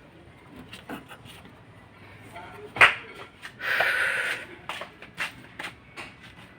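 Hands working on engine parts: a sharp metallic click, then a short scraping rustle and a few light clicks as a vacuum line and its fitting are worked loose.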